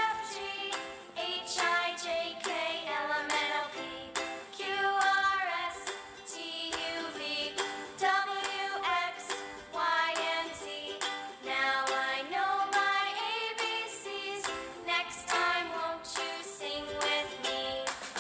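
Background music with a melody line and frequent note changes.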